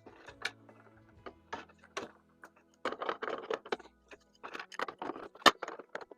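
Intermittent clicks, rattles and scrapes of small metal parts being handled while wires are fastened to a mini split indoor unit's terminal block, with a sharper click near the end. Soft background music runs underneath.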